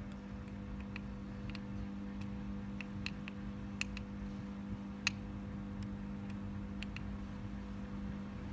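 Faint, irregular light clicks, about a dozen, one slightly louder about five seconds in, over a steady low hum.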